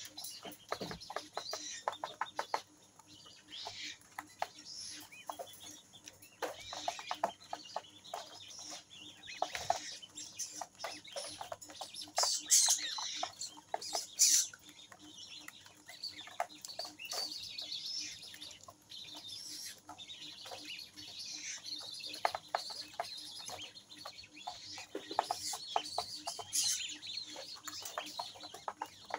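Grey-headed swamphens (a brood of downy chicks with an adult) calling with high, short cheeps, mixed with many quick sharp ticks from pecking at feed on the pen floor. A couple of louder, shriller calls come about halfway through.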